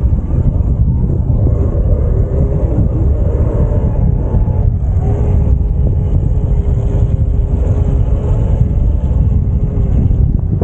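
Wind buffeting the microphone on a moving electric bike, a loud steady low rumble, with a faint steady whine from the e-bike's electric motor joining about halfway through.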